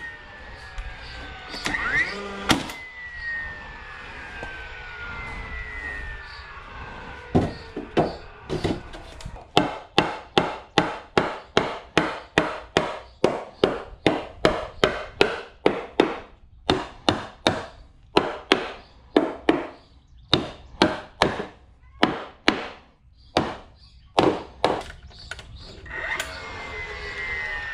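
DeWalt cordless framing nailer driving nails into pressure-treated lumber, each sharp shot followed by the motor's whine falling in pitch, a few times near the start and again near the end. In between comes a long run of hammer blows on the wood, about two to three a second with short pauses.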